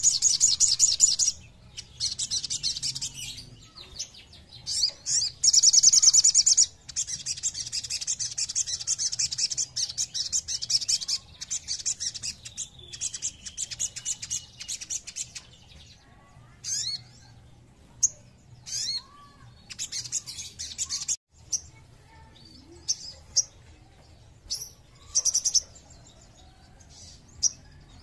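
Caged sogon, a sunbird, singing a fast, high-pitched trilling song in long bursts, then giving short sharp chirps a second or two apart in the second half.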